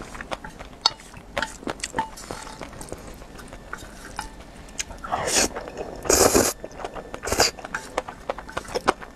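Close-miked eating of black bean sauce noodles: chopsticks clicking and scraping on a metal plate, with wet chewing and mouth sounds. Past the middle come a few louder noisy rushes, the loudest a little over six seconds in, like noodles being slurped.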